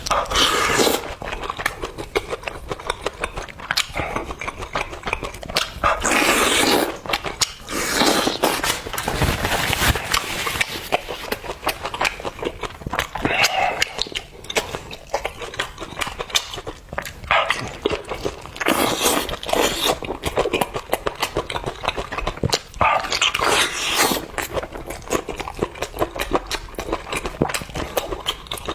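Close-miked eating: wet chewing and smacking clicks throughout, with a noisy slurp or sucking breath every few seconds.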